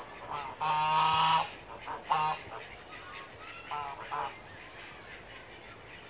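Domestic geese honking: one long, loud honk about a second in and a short honk just after two seconds, then a few quieter calls around four seconds in.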